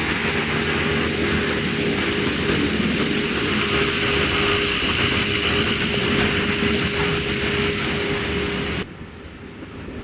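Diesel engine of a Caterpillar snow-clearing machine running steadily with a constant whine. Near the end it cuts off suddenly, leaving a much quieter outdoor background.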